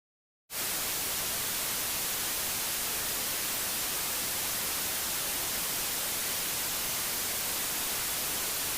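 Steady, even television static hiss, a hissing white noise brightest in the highs, that cuts in abruptly out of dead silence about half a second in.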